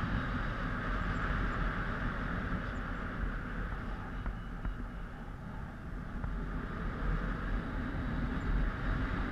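Wind rushing past a helmet-mounted GoPro in paraglider flight, buffeting the microphone with a low rumble. It eases off a little about halfway through and picks up again near the end.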